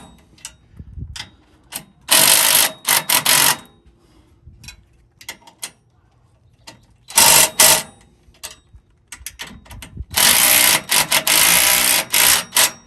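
Bolts on a steering brace being run in and tightened with a tool, in three loud bursts of about a second and a half, under a second, and two and a half seconds, each broken by short stops. Scattered clicks and clanks of metal come between the bursts.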